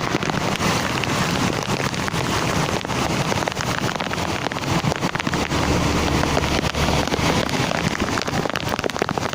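Heavy rain pouring down, a dense patter of drops striking surfaces. A low rumble swells between about five and seven seconds in.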